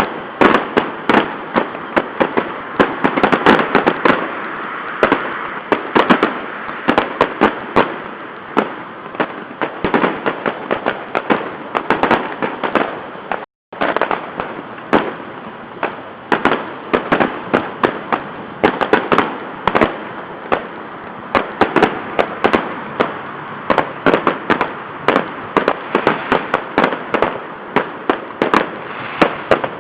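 Fireworks salute going off without pause: a dense, irregular stream of sharp bangs and crackles, many a second, picked up by a webcam microphone that makes it sound thin. The sound cuts out completely for a moment about halfway through.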